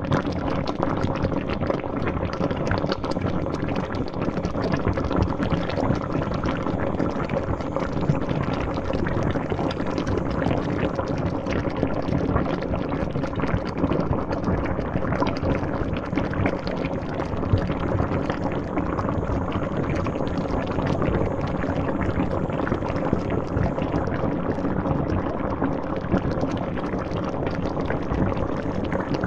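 Water boiling hard in a pot, a continuous dense bubbling and popping that holds steady throughout.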